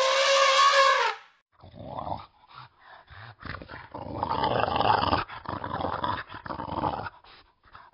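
An elephant calf's trumpet call ends about a second in. Then an English bulldog growls in a run of rough, uneven bursts lasting several seconds.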